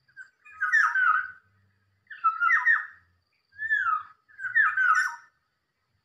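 Black-naped oriole (kepodang) song: four short phrases of gliding whistled notes, each under a second, about a second apart.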